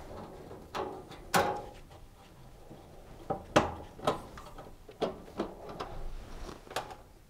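Screwdriver working screws on a dishwasher's sheet-metal frame: irregular light clicks and knocks of the tool against the screws and metal panel.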